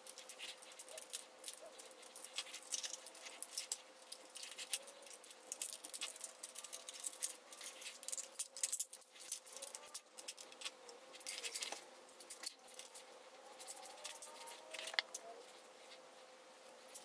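Sped-up handling noise of a plastic alarm clock being taken apart: dense, irregular clicks and rattles of plastic casing, circuit boards and small parts being pried and moved by hand and pliers, over a faint steady hum.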